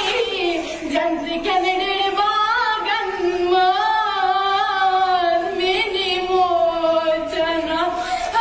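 A girl singing solo and unaccompanied in an emotional voice, holding long notes that slide and waver between pitches.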